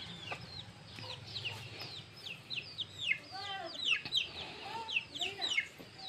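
Chicks peeping in a steady stream of short, high, falling chirps, several overlapping, with a few lower calls from older chickens around the middle.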